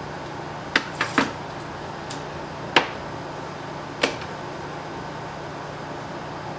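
A few short, sharp clicks and taps, the loudest about three seconds in, over a steady low hum.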